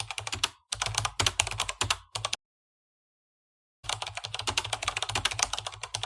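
Rapid computer-keyboard typing clicks in runs that start and stop abruptly, with a gap of about a second and a half near the middle before a longer run. This is a typing sound effect.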